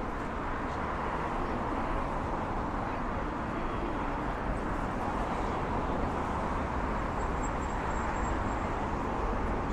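Steady street noise of traffic on a busy city avenue, with a faint, brief high-pitched chirping about three-quarters of the way through.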